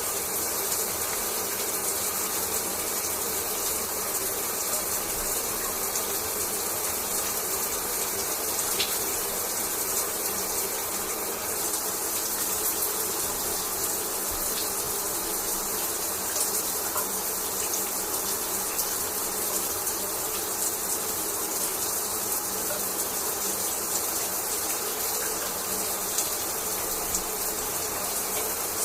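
Shower water running steadily and spraying down, an even hiss with faint pattering.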